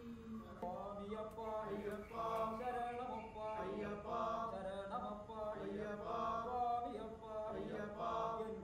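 Devotional chanting in praise of Ayyappa, hailed as the son of Harihara: voices sing a continuous, melodic chant over a steady held tone.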